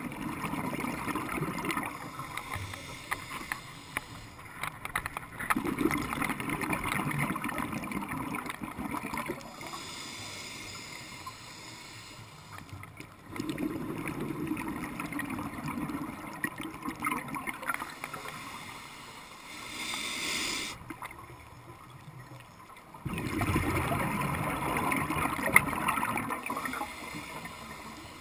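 Scuba diver breathing through a regulator underwater: several long exhalations, each a few seconds of bubbling, separated by quieter gaps, with a short hissing inhalation about twenty seconds in.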